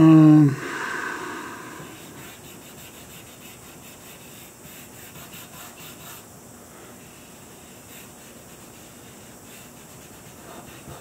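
Fingertip rubbing and pressing on drawing paper laid over an inked plexiglass plate, a faint, soft scratchy rubbing. A brief hummed voice sound at the very start.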